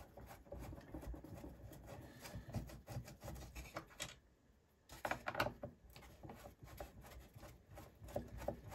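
A hand screwdriver backing screws out of the plastic housing of a bidet toilet seat's slow-close damper: faint scraping and small clicks of the bit and the plastic, with a brief pause about four seconds in.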